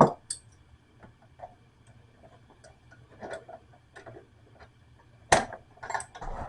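Small clicks and knocks of a sink pop-up drain linkage being handled and adjusted: the lift rod, clevis strap and clip tapping on metal, a few scattered ticks with a sharper knock about five seconds in and several near the end.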